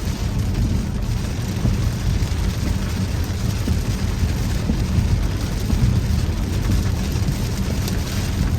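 Rain hitting a truck's body and windshield, heard from inside the cab. Under it runs a steady low rumble of the truck driving on a wet road.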